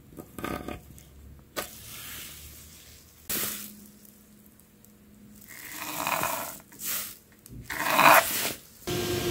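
A metal square handled and set on a walnut board, and a line marked along it with a pen: a few light knocks and rubs, then two scraping strokes about six and eight seconds in, the second the loudest.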